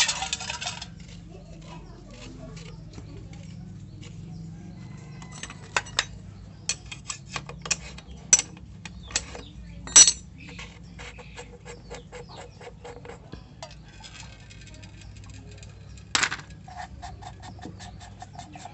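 Irregular metallic clicks and clinks of hand tools and small steel parts being handled at a motorcycle engine's cylinder head during dismantling, with sharper clinks about ten seconds in and again about sixteen seconds in.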